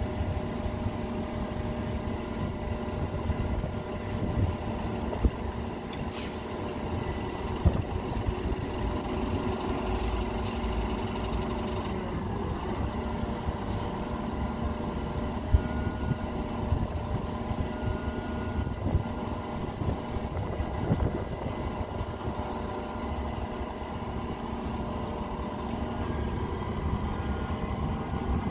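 Compressed-natural-gas city bus idling steadily with an even hum, with a few short clicks. Its engine pitch begins to rise at the very end as it pulls away.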